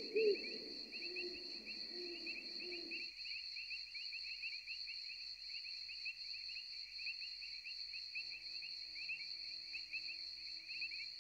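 Steady chorus of crickets and other insects trilling in rapid, even pulses, a night-forest ambience bed. Faint low tones come and go underneath it.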